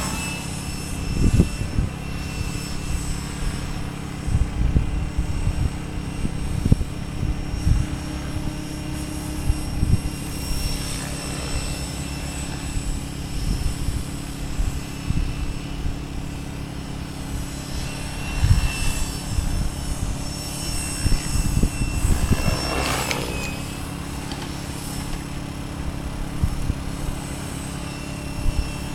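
Radio-controlled model helicopter flying aerobatics: a steady whine of the motor and rotor, swelling with shifts in pitch a few times, around 11, 19 and 23 seconds in, as it manoeuvres and passes. Irregular low thumps run underneath.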